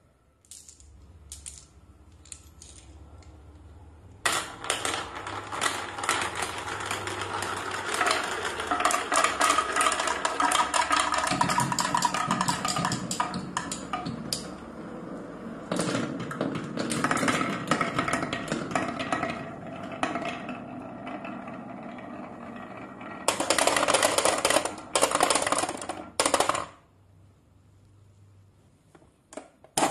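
Many marbles rolling and clattering down wooden marble-run tracks, a dense stream of clicks and knocks. A few scattered clicks come first, the main clatter starts suddenly about four seconds in, and the loudest bursts come shortly before it stops.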